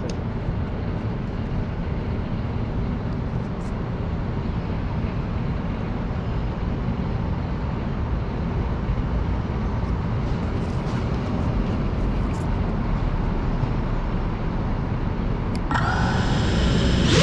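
Steady low rumble of city ambience outdoors. About two seconds before the end, the GePRC Cinelog 35 drone's motors start up with a whine of several steady pitched tones, and the level rises.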